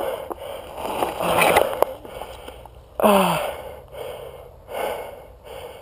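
A mountain biker breathing hard, with a short groan falling in pitch about three seconds in. He is out of breath and hurting after a crash in which he struck his elbow.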